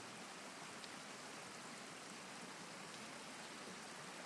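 Shallow muddy floodwater running and splashing across the ground in a steady stream: a faint, even rush of water.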